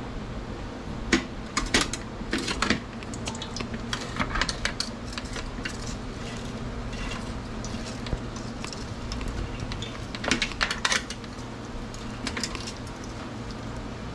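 Metal tongs clinking and scraping against a stainless steel tray and its wire rack as a deep-fried fish is handled, in several short bursts of clatter, over a steady low hum.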